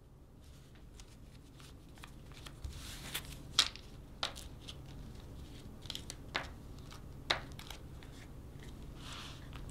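Paper banknotes being folded and creased by hand: soft rustling broken by a series of sharp, crisp snaps, the loudest about three and a half seconds in.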